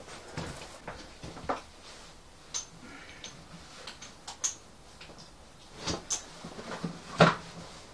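Scattered light clicks and knocks of equipment being handled, as a tyre compressor is got out. The loudest is a sharp knock about seven seconds in.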